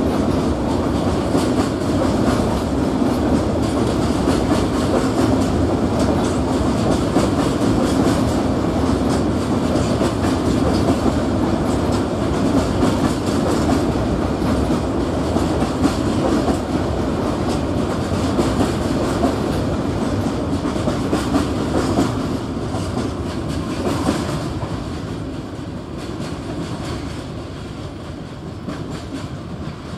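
A train running past on the station tracks, a dense steady rumble with wheels clicking over the rails. It fades away over the last several seconds as the train moves off.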